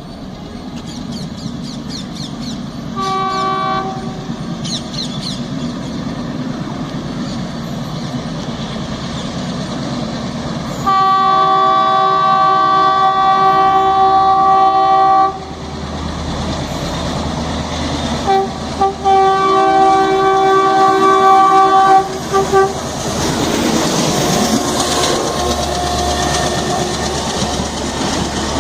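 ALCO diesel locomotive of Indian Railways sounding its horn, a tone said to be just like a WDP3A's: a short blast about three seconds in, a long blast of about four seconds near the middle, then a few shorter, broken blasts. Under it the train runs with a steady rumble, and near the end the noise of the passing coaches and wheels grows louder.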